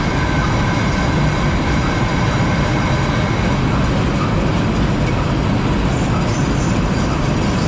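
Potato unloading machine and its conveyor belts running steadily: a loud, even mechanical noise with a thin steady whine over it.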